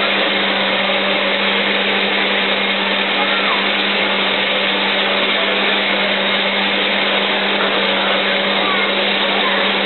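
Taffy-pulling machine's electric motor running with a steady, unbroken hum as its arms stretch salt water taffy.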